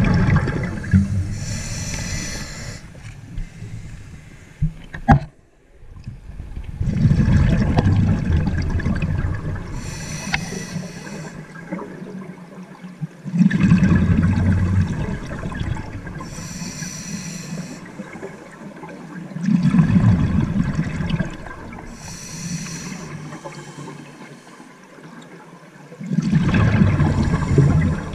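Scuba diver breathing underwater through a regulator: a hiss on each inhalation alternates with a rumble of exhaled bubbles, about every six seconds. A sharp click comes about five seconds in.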